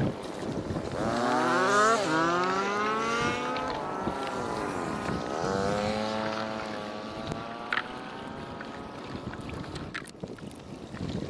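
Engine of a motor vehicle going past, its pitch rising and falling, loudest about two seconds in and fading out after about eight seconds.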